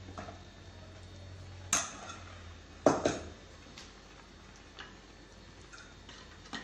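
A spoon knocking against a clay cooking pot: one knock a little under two seconds in, a louder double knock about three seconds in, then a few light taps. A low hum underneath stops at about the time of the double knock.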